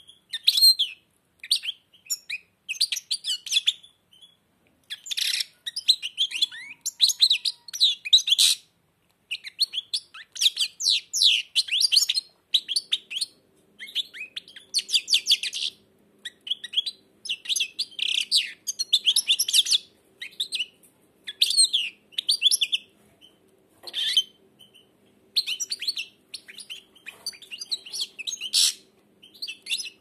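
European goldfinch singing: phrases of quick twittering chirps and trills separated by short pauses.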